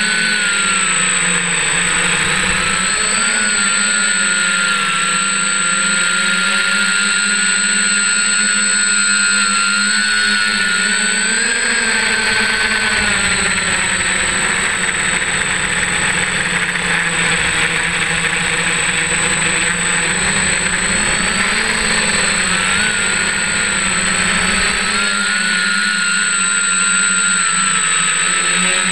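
F550 hexacopter's six electric motors and propellers droning steadily in flight, heard up close from a camera on the frame, with a high whine over the drone. The pitch shifts up and down slightly as the throttle changes.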